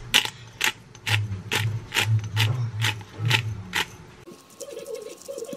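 Hand-twisted pepper grinder grinding black pepper: a run of sharp ratcheting clicks, about three a second, over a low grinding rumble, stopping about four seconds in.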